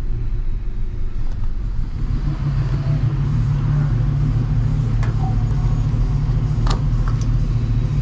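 Chevrolet Silverado 5.3-litre V8 idling steadily, with a few sharp clicks in the second half as the fuel filler door and gas cap are opened.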